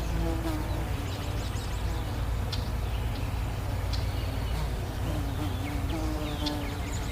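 A bee buzzing, its hum wavering in pitch and fading in and out, with scattered bird chirps over a steady low rumble.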